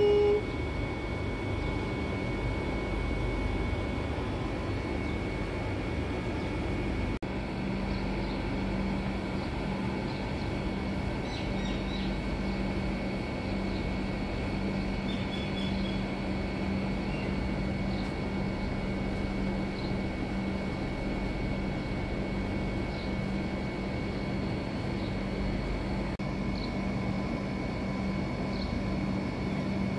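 Steady low rumble of outdoor street background, like traffic or running machinery, with a steady low hum that joins about seven seconds in.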